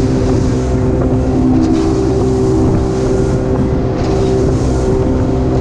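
Center-console fishing boat's engine running steadily under way at speed, a constant droning hum over the rush of water and spray along the hull.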